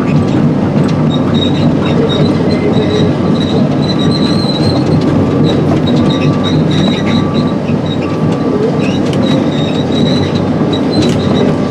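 Tracked excavator travelling over a rocky road to pack it down, heard from inside the cab. The diesel engine runs steadily under the clank of the steel track chains, with a high squeal from the tracks that comes and goes over and over.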